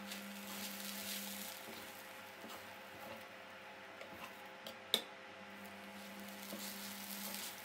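Metal spoon stirring and turning poha (flattened rice) in a stainless steel pan: soft scraping and rustling in two spells, with one sharp tap of the spoon against the pan about five seconds in. A low steady hum sits under the stirring.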